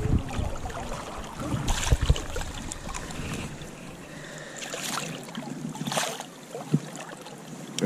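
River current running steadily, with a few short splashes as a large steelhead moves in a landing net, about two, five and six seconds in.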